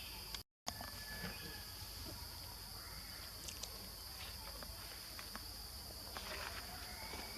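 Outdoor ambience with a steady high insect drone, like crickets, and a few faint chirps over it. The sound drops out completely for a moment about half a second in.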